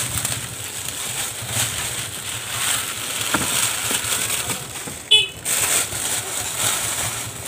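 Clear plastic wrapping being pulled off and crumpled by hand, a steady crinkling and rustling, with one sharp snap about five seconds in.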